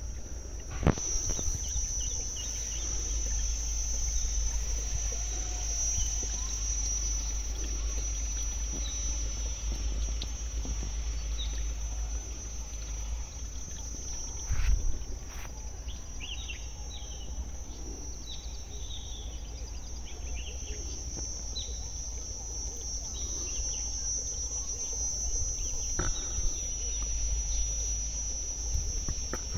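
Insects trilling in one steady, unbroken high drone, with a few short higher chirps scattered over it and a low rumble underneath. Two sharp knocks, about a second in and again near the middle.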